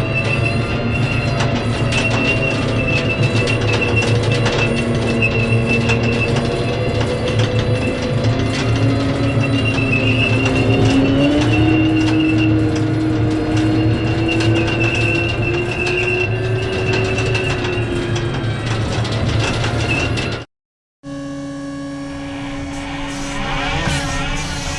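Tank turret traversing: a steady mechanical whine over a low hum, one tone slowly rising in pitch near the middle, cutting off suddenly about twenty seconds in. After a brief gap a second turret-drive sound starts with a different set of steady whining tones.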